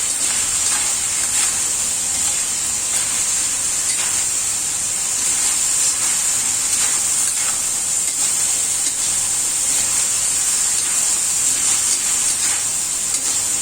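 Celery and shredded beef sizzling steadily in a hot pan as they are stir-fried, with faint scrapes and clicks of the stirring.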